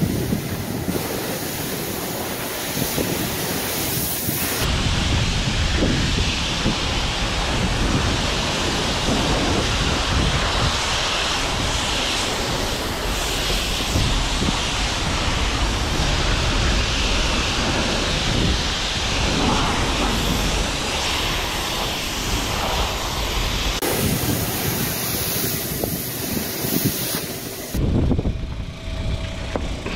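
Self-serve car wash high-pressure spray wand blasting water onto a car: a steady rushing spray that changes abruptly in level and tone a few times.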